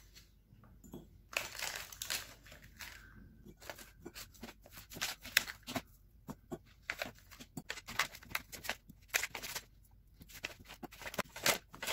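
Thin clear plastic tray crinkling and crackling as frozen cubes of ginger-garlic paste are pried out of it with a knife and by hand: a run of irregular small clicks and crackles.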